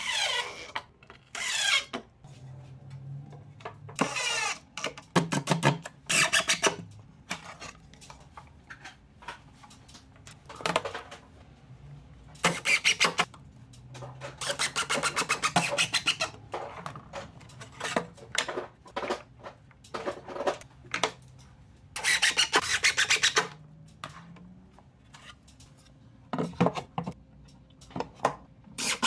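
DeWalt cordless drill/driver running in repeated short bursts, driving screws through steel ball-bearing drawer slides into a wooden cabinet side, with clicks and knocks of handling between the bursts.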